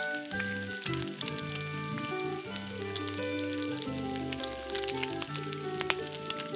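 Batter-coated egg bondas deep-frying in hot oil, a steady sizzle with fine crackles as they are lifted out with a spatula. Background music of held notes plays under it.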